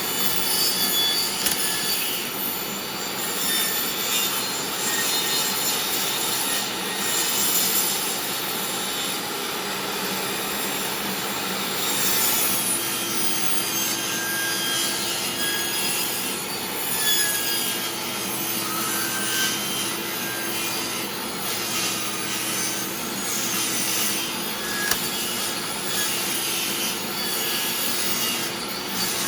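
Old DeWalt table saw running with a wood board being turned against its spinning blade, the blade rasping through the wood to cut a disc. A steady hum joins about twelve seconds in.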